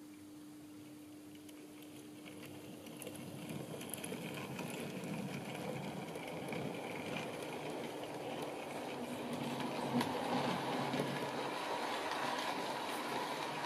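Bachmann V3 OO gauge model locomotive and coaches moving off: a quiet start, then a rumble of wheels on rails with light clicks that grows steadily louder as the train passes. The extra noise comes from rails on track ballasted directly onto chipboard.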